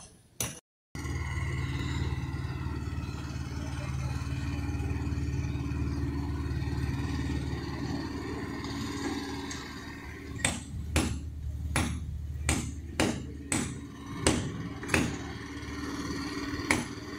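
A steady low motor drone, then, from about ten seconds in, repeated sharp hammer blows, about two a second.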